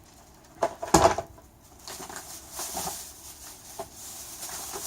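Items being handled and set down on a hard surface: two sharp knocks about a second in, then softer rustling and handling noise.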